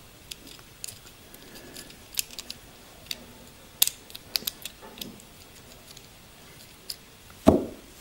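Small plastic clicks and taps of fingers handling a NECA RoboCop action figure, working the tiny button on its leg that springs the thigh holster open. A louder snap about 7.5 seconds in, as the spring-loaded thigh panel pops open.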